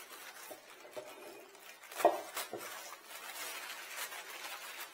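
Unboxed parts and hardware being handled: a few light knocks, the clearest about two seconds in, then rustling of packaging.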